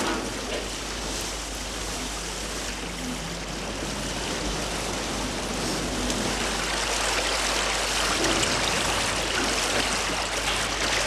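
Steady rush of water along a sailing barge's hull, an even hiss of wash and spray that grows slightly louder toward the end.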